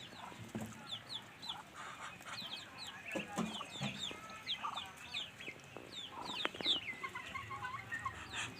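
Ducklings peeping: many short, high, falling peeps that overlap and run on without a break, with a few lower calls mixed in.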